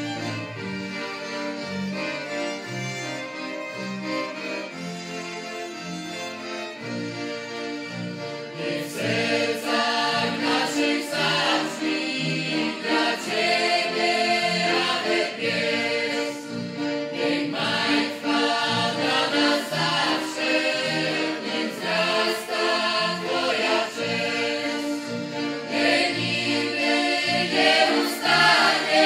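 Folk music led by a violin over a steady low bass line, quieter at first and growing louder and fuller about nine seconds in.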